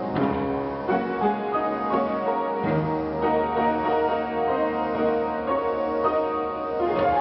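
Piano music, a run of held and overlapping notes.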